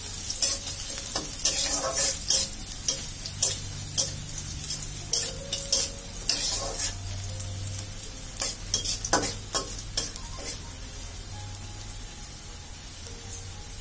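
Chopped onion frying in hot oil in a pan, sizzling, while a spatula stirs and scrapes against the pan in frequent short strokes. The strokes thin out after about ten seconds.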